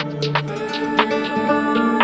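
Oriental deep house music: sustained synth and bass tones under sharp percussion hits, with a hazy high pad coming in about half a second in.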